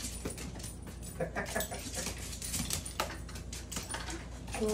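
A dog jumping and scrambling after soap bubbles: a quick, irregular run of clicks and scrabbles from its claws on the wood-laminate floor, with its breathing and a few small whines.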